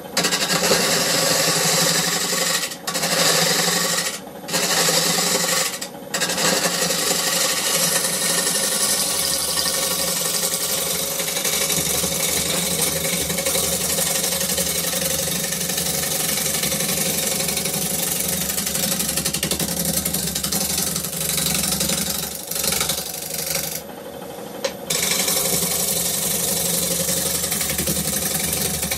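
Gouge cutting a spinning honey locust bowl blank on a wood lathe: a steady scraping cut over the lathe's motor hum. It breaks off briefly a few times in the first six seconds and for about a second near 24 seconds, when the tool comes off the wood.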